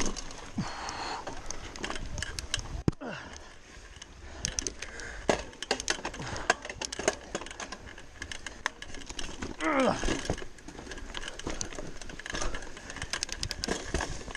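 Giant Talon 3 29er hardtail mountain bike rattling down a rough dirt trail: many sharp clicks and knocks from the chain and frame as it bounces over roots, over the rumble of tyres on dirt. A short pitched sound comes about ten seconds in.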